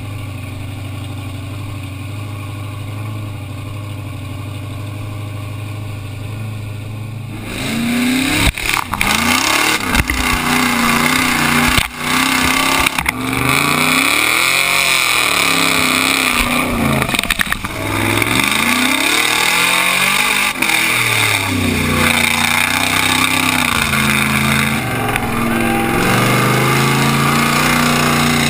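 Chevrolet Blazer truck engine revving up and down repeatedly while driving through water and mud, over the rush of spray and wind on the outside-mounted camera. For the first seven seconds or so the engine holds a steadier, quieter drone before the revving starts.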